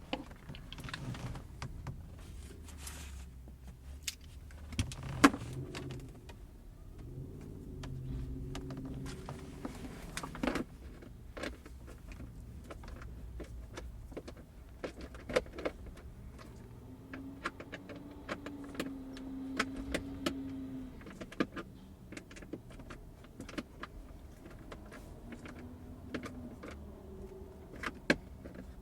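Phillips screwdriver driving screws into a new plastic latch and cutting their own threads in the plastic: creaking and squeaking in drawn-out stretches, with many small clicks and taps.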